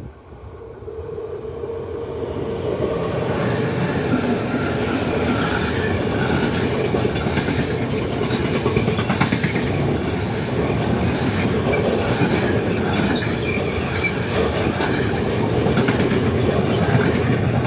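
A freight train passing close by: a DB Cargo class 193 electric locomotive leading a long rake of sliding-wall wagons. The sound builds over the first two to three seconds as the train arrives, then holds as a steady, loud rumble and rattle of wagon wheels on the rails.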